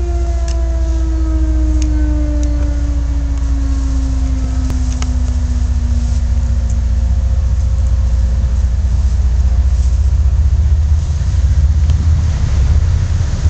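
Approaching CSX freight train heard from a distance: a steady low rumble, with a humming tone that slowly falls in pitch over the first ten seconds or so.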